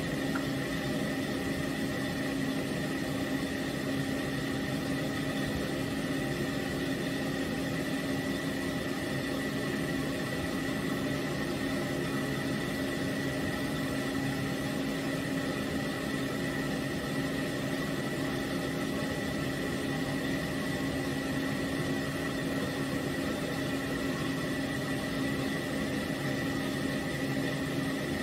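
Pet-grooming stand dryer running: a steady motor hum with a thin high whine above it, unchanging.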